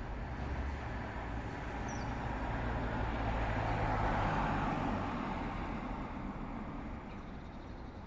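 A motor vehicle passing on the street: engine and tyre noise grows louder to a peak about halfway, then fades away.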